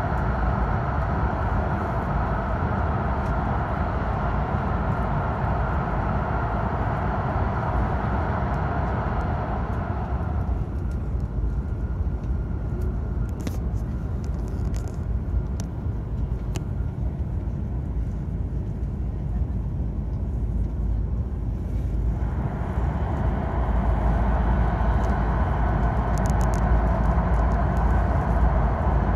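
Hokkaido Shinkansen bullet train at speed, heard from inside the passenger cabin. In the tunnel there is a loud, steady roar. About ten seconds in the train comes out into the open and the roar falls to a lower rumble. It swells back about 22 seconds in as the train enters another tunnel.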